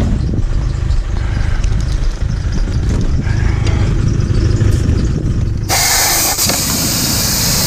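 A low rumble, then about two-thirds of the way through a sudden steady hiss starts: air rushing out of a fridge's cut copper refrigeration line. It is only air escaping, not refrigerant gas, so the system is already empty.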